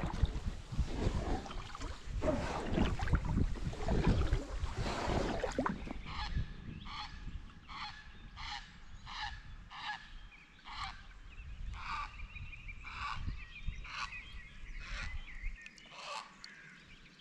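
Water and wind noise from paddling an inflatable packraft. About six seconds in, a bird starts calling over and over, short calls at about one and a half a second, with a thin steady whistle behind part of the run.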